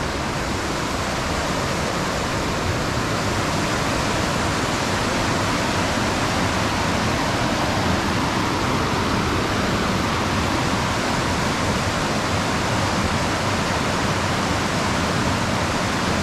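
Fast mountain creek rushing over rocks in whitewater rapids, a steady, unbroken rush of water.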